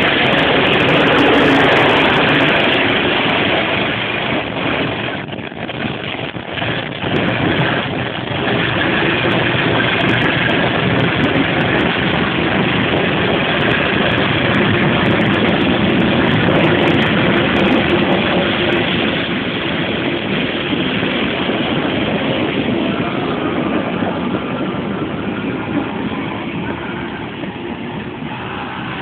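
A moving KA Dhoho passenger train: a steady, loud running noise of engine and wheels. It dips briefly a few seconds in, then holds steady.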